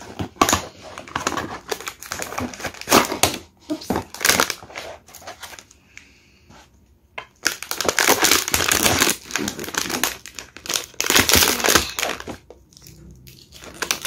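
Packaging being handled by hand: a cardboard blind box rustling and scraping, then a foil blind-box bag crinkling as it is pulled open, in irregular bursts with a short quiet pause about halfway through.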